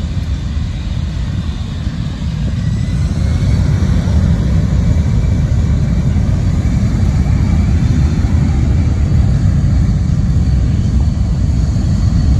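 Jet aircraft engine noise: a steady low rumble with a faint high whine, growing louder over the first few seconds and then holding.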